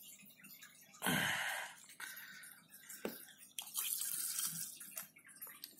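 Water being sucked up and squirted out with a 60 ml plastic syringe during an aquarium water change. There is a short burst of slurping water about a second in, a tick about three seconds in, and a softer run of water sound around four seconds in.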